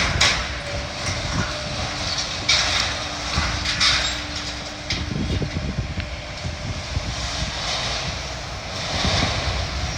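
Demolition excavators' diesel engines running steadily, with intermittent crunching and scraping of metal debris as the building is torn down.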